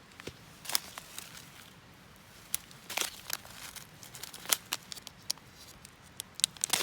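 Crinkling and rustling with scattered sharp clicks and taps, as something is handled at close range.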